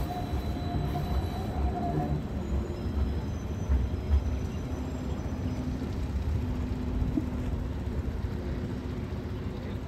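Danhai light rail tram pulling away on its track: a steady low rumble from the moving cars, with a faint steady whine for the first couple of seconds.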